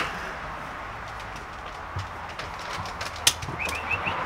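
Four quick high chirps from a small bird near the end, over a steady low background hiss and hum, with one sharp click just before them.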